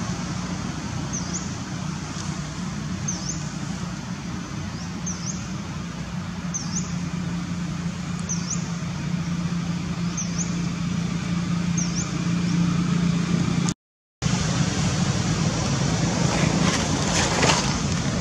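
Steady outdoor background noise with a low hum, and a bird repeating a short high chirp about once a second. The sound drops out for a moment a little past the middle, and a few rustles come near the end.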